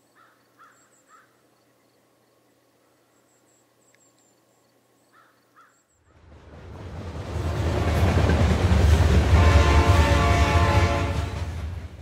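Faint chirps, then a loud, deep rumble that swells up about halfway through, holds with a steady hum over it, and fades near the end.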